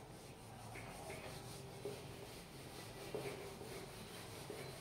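Handheld whiteboard eraser rubbing across a whiteboard in repeated faint strokes, wiping off marker writing.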